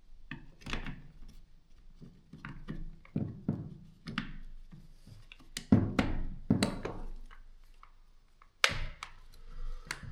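Irregular knocks, clicks and thunks of cordless drill parts being handled and fitted back into the drill's housing, with two louder knocks, one about halfway through and one near the end.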